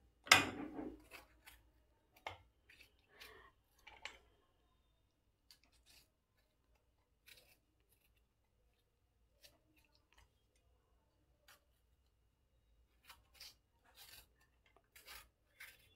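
A knife cutting through a hand-held tomato and the pieces dropping into a steel mixer-grinder jar: faint, scattered snips and small knocks. The loudest comes just after the start, there are a few more in the first seconds, a long quiet stretch follows, and more come near the end.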